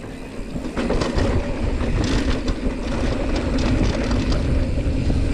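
Mountain bike rolling down a dirt trail: a steady rumble of tyres on the ground with many small rattles and clicks from the bike, building up about a second in.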